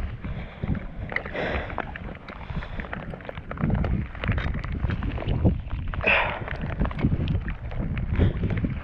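Wind buffeting the microphone over choppy water lapping at a kayak hull, with scattered small knocks from gear handled aboard.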